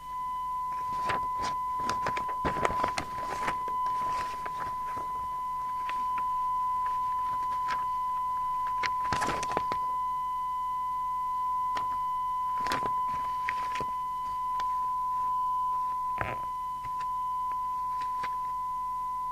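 A steady, unbroken test tone from the PNI HP55 CB radio's speaker, which comes on right at the start: the radio is receiving the test signal generator's tone-modulated carrier. Over it come several clusters of clicks from the keys of the radio's one-hand microphone control being pressed.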